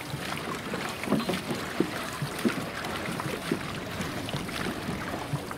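Water splashing and lapping as a dragon boat's paddles dip and pull, heard as a run of small, irregular splashes over a steady wash.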